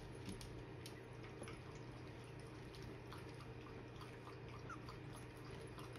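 Faint shuffling and scattered soft clicks from cockapoo puppies about 3.5 weeks old moving about and nuzzling together, with a couple of tiny squeaks, over a steady low room hum.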